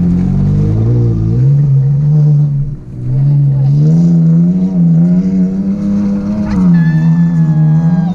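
Pickup truck engine revving hard under load while climbing a steep dirt hill, its pitch rising and falling as the throttle is worked, with a brief drop about three seconds in. A sharp knock comes about six and a half seconds in.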